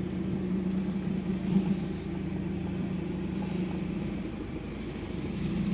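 Diesel car engine running steadily while driving, heard from inside the cabin as a low, even hum.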